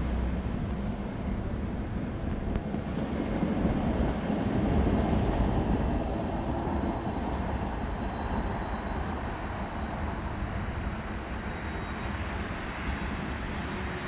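Low, steady rumble of city traffic, swelling a little about four to six seconds in.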